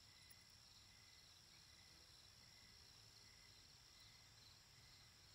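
Near silence: room tone with a faint, steady, high-pitched background noise.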